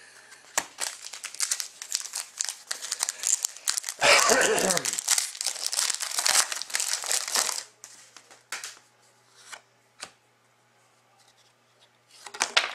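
Foil trading-card pack being torn open and its wrapper crinkled: a run of dense crackling lasting about seven seconds, loudest around four seconds in. After it come a few separate short clicks as the cards are handled.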